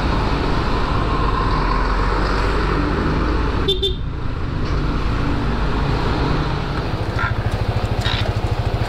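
Yamaha scooter engine running while riding through street traffic, with road and wind noise on the mic. A short horn toot sounds about four seconds in. Near the end the engine note turns to an uneven pulsing idle as the scooter pulls up and stops.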